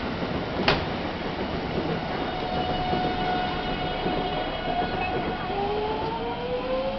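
JR West 207 series electric train pulling out: a sharp click a moment in, then the inverter-driven traction motors give a steady whine whose tones begin gliding upward in pitch about five seconds in as the train gathers speed.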